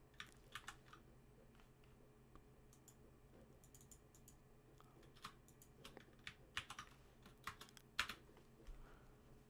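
Faint, irregular computer keyboard keystrokes and clicks, more of them in the second half, over a low steady hum.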